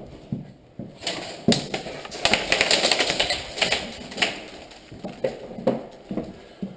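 Airsoft guns firing indoors: rapid strings of sharp clicks, densest from about one and a half to four and a half seconds in, then a few scattered shots.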